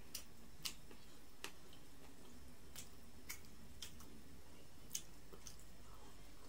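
A person swallowing a drink in gulps from a glass mug, each swallow a sharp throat click. There are about eight clicks at uneven intervals, half a second to a second apart, over a faint steady hum.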